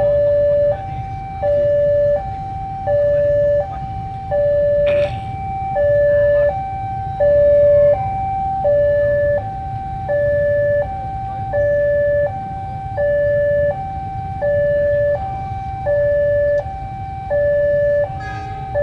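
Railway level-crossing alarm sounding its two-tone warning, alternating a lower and a higher tone about every three-quarters of a second, the lower tone louder. It signals that a train is approaching the crossing. A low rumble of street noise runs beneath it.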